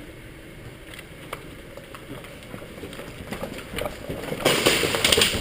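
Scattered light clicks and rustles, then, about four and a half seconds in, an airsoft rifle starts firing on full auto: a loud, fast, even string of cracks, about ten a second.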